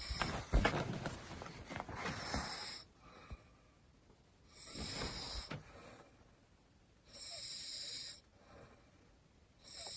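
A sleeping person snoring, with a rasping snore about every two and a half seconds and quiet between breaths.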